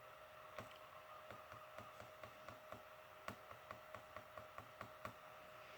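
Faint, quick clicking from working a computer, about four clicks a second, over a faint steady hum.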